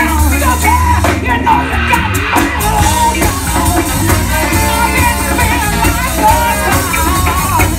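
Live band playing a song with a woman singing lead over drums, bass and horns.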